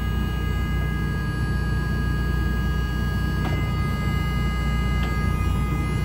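Hitachi Zaxis 210-6 hydraulic excavator's diesel engine running steadily, heard from inside the cab, with a steady high-pitched whine over the engine rumble and a couple of faint clicks.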